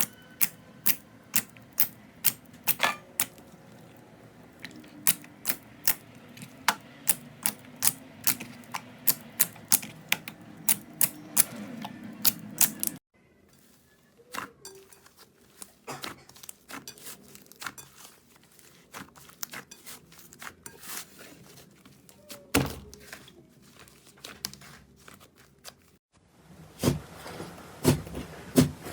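Slime being handled, pressed and poked, giving a quick run of sharp clicks and pops, about two or three a second at first, then fewer after a sudden break.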